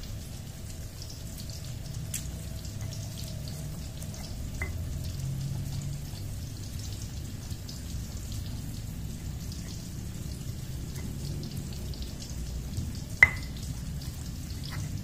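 Stone pestle (ulekan) grinding chilies, shallots and candlenuts into sambal on a stone mortar (cobek): a steady low rubbing and crushing with scattered small clicks, and one sharp knock of stone on stone near the end.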